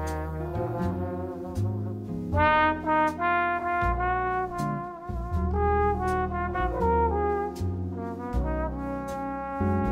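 Jazz background music: a trombone plays a slow melody of held notes over a bass line and a steady ticking beat.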